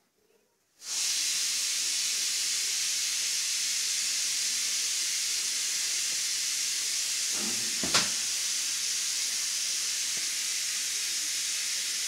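A loud, steady hiss that starts abruptly about a second in and cuts off suddenly at the end, with a single sharp knock about eight seconds in.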